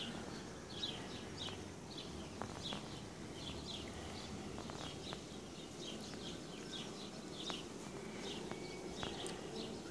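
Honeybees humming faintly around an open hive and a frame covered in bees. A bird chirps over and over above them, a few short falling chirps a second.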